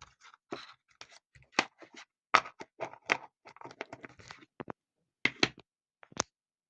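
Hands handling small fidget toys and their packaging: a rapid, irregular series of clicks, taps and crinkling rustles, with a few louder knocks.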